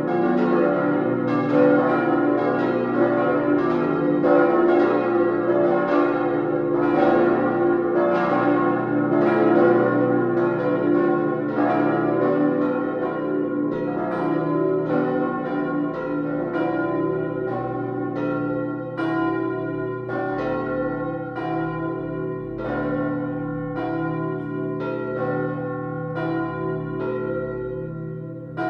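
Full peal of cast-steel church bells swinging. Strikes overlap densely at first, then thin out in the second half to single strikes about once a second, with a long hum ringing on underneath.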